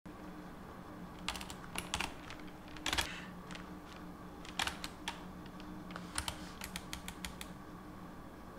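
Computer keyboard keys clicking in short, irregular clusters of keystrokes, the loudest about three seconds in, over a faint steady low hum.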